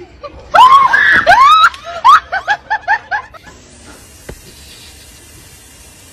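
High-pitched shrieking laughter: a few long rising-and-falling squeals, then a run of short 'ha-ha-ha' bursts, about four a second, that die away. A single sharp knock follows about four seconds in.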